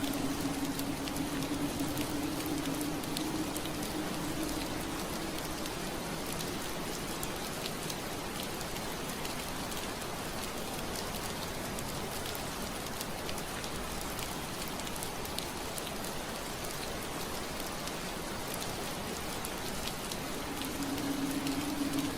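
Steady rain pattering on window glass, with scattered drop ticks over an even hiss. A low steady hum is there at first, fades out within the first few seconds and comes back near the end.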